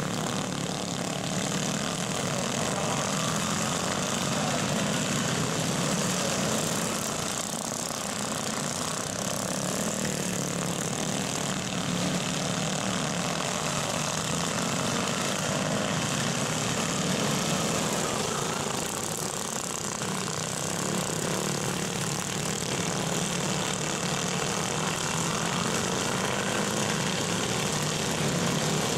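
Several racing garden tractors' small engines running hard together, a steady engine drone whose pitch wavers up and down as the machines go round the track.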